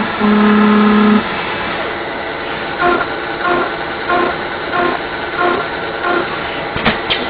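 Steady machine-shop noise, with a loud one-second buzz-like tone near the start and then a run of short beeps, about one and a half a second, for a few seconds.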